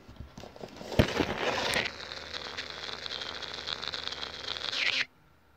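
Close handling noise on the phone's microphone: a sharp knock about a second in, rustling, then a steady rustling hiss that cuts off abruptly near the end.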